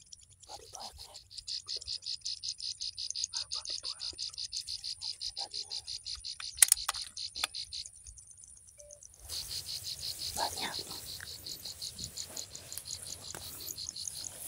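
An insect trilling in rapid, even pulses, about nine a second, that stops about eight seconds in and starts again a second later. A couple of sharp clicks come shortly before the pause.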